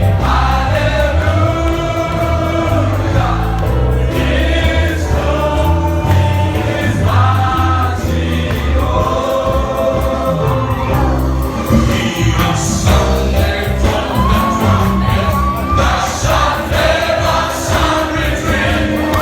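Gospel choir singing a praise song over band accompaniment, with a steady bass line and regular drum beats.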